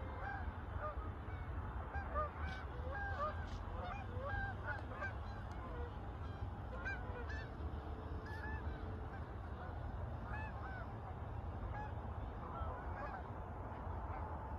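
A flock of Canada geese honking, many short calls overlapping continuously. A steady low rumble lies underneath.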